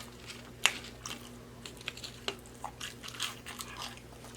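Close-miked chewing and biting of a fast-food sandwich, wet mouth clicks and crunches at an irregular pace, with one sharper crunch about a second in.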